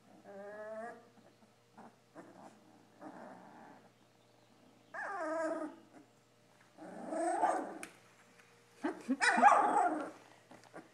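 A 19-day-old Labrador retriever puppy crying out: about five drawn-out whining calls roughly two seconds apart, growing louder toward the end.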